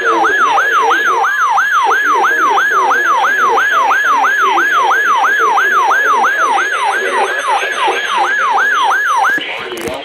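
RadioShack weather alert radio sounding its siren alarm for a received weather warning: a loud whooping tone that falls in pitch about three times a second, over faint broadcast speech. It cuts off shortly before the end, followed by a click.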